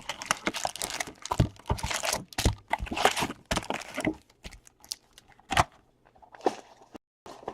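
Trading card pack wrappers crinkling and tearing as packs are opened and cards handled, dense for the first four seconds or so, then a few scattered rustles and clicks.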